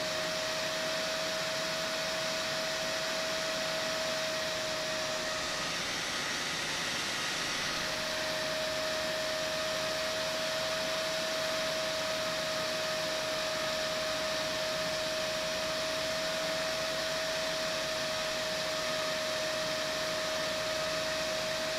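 Steady whir of a cooling fan on a Peltier cooler's heatsink, with a steady whine that drops out for about two seconds early on and then returns.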